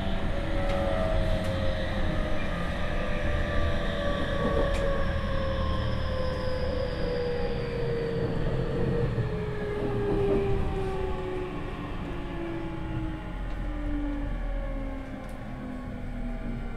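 Tokyu 5000 series train's Hitachi IGBT VVVF inverter and traction motors whining inside the car, several tones gliding steadily down in pitch as the train slows under braking, over the rumble of wheels on rail.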